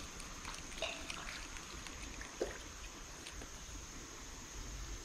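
Faint creek-side ambience: a steady high insect drone over a light trickle of water, with a few small handling knocks, the sharpest about two and a half seconds in.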